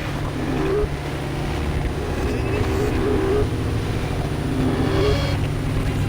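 A motor engine running steadily, with short rises and falls in pitch every second or two.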